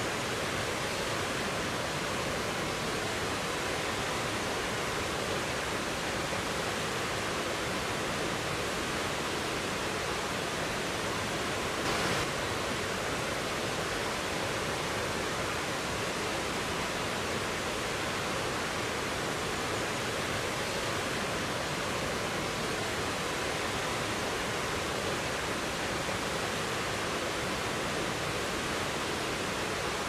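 Waterfall and white-water torrent rushing steadily through a rocky gorge, an even wash of water noise with one brief louder moment about twelve seconds in.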